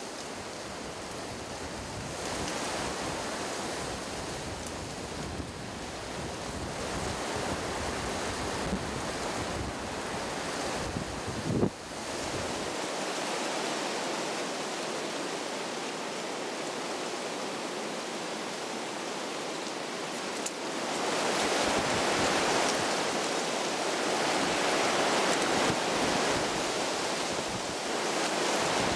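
Wind rushing through tree leaves and buffeting the microphone, growing louder about 21 seconds in, with one brief bump near the middle.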